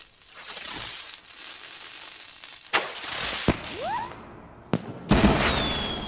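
Fireworks hissing and crackling, with several sharp bangs, a short rising whistle about two thirds of the way through, and a long high whistle starting near the end.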